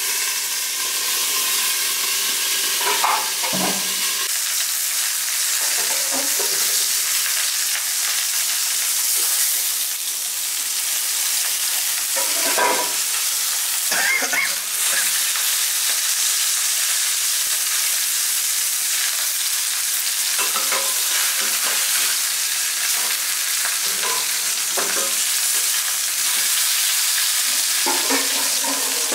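Torpedo scad (chencaru) frying in hot oil in a nonstick pan, a steady sizzle. Now and then a metal spatula scrapes and knocks in the pan as the fish is turned.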